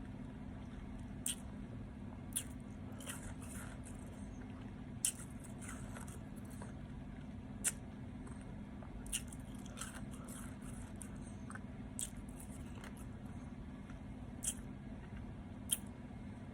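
Ice being bitten and crunched between the teeth: sharp, brief crunches every second or two, over a steady low hum.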